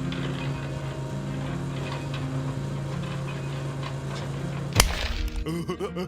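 A small motor running with a steady hum and light ticking. Near the end a single sharp knock cuts it off, and warbling music-like sounds follow.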